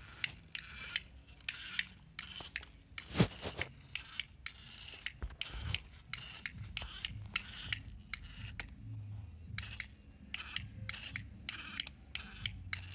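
Homemade DC-motor model tractor (a Swaraj 855 replica) hauling a mud-loaded trolley through loose soil. Its wheels and trolley make a string of short, irregular scratchy crunches in the dirt over a low, uneven motor hum, with one sharp click about three seconds in.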